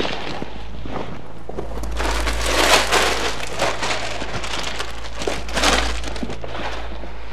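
Scuffing and rustling of people moving about and handling things, loudest about two to three seconds in and again near six seconds, with a few light clicks, over a steady low hum.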